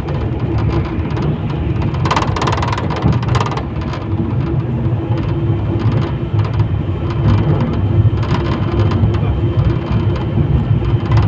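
71-911EM "Lvyonok" low-floor tram running along the track, heard from inside the car: a steady low rumble with a constant hum from the drive, and a louder rattling stretch about two seconds in.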